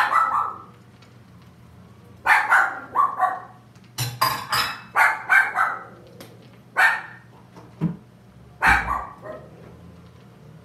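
A dog barking repeatedly: about a dozen sharp barks, mostly in quick clusters of two or three.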